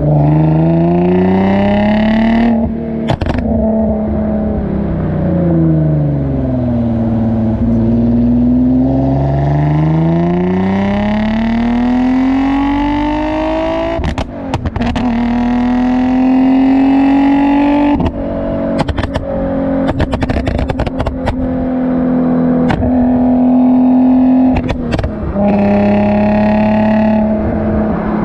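Infiniti G35's 3.5-litre V6 through a Motordyne Shockwave exhaust, heard close to the tailpipes. The engine pitch climbs and falls repeatedly as it accelerates and lets off. Each time the throttle closes there is a burst of crackles and pops, the overrun pops and bangs programmed in by the Uprev ARC tune.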